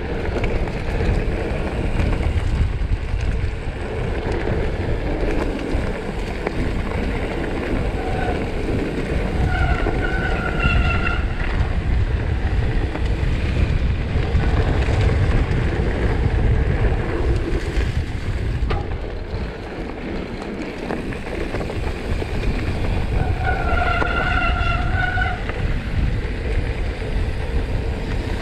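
Wind buffeting an action camera's microphone over the rumble and rattle of a mountain bike rolling down a dirt trail, with two brief steady squeals, about ten seconds in and again near the end.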